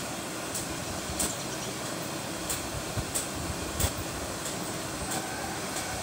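Footsteps on a paved path at an even walking pace, a light tick about every two-thirds of a second, over a steady rushing background noise.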